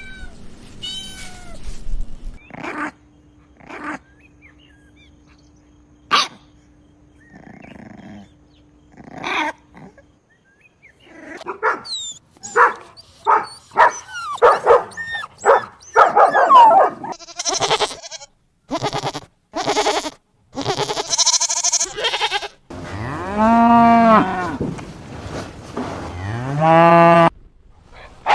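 A run of short, sharp animal calls and clicks, then a cow mooing twice in long, drawn-out calls near the end.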